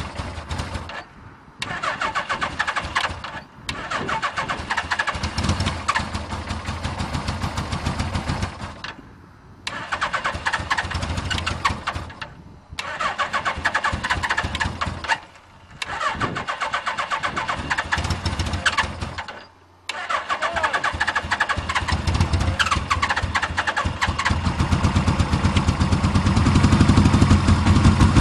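Suzuki GS850G's air-cooled inline four-cylinder engine cranked from cold on choke by its electric starter, in about seven long bursts with short pauses. Near the end it catches and starts to run roughly, firing on only some cylinders because of a bad coil pack.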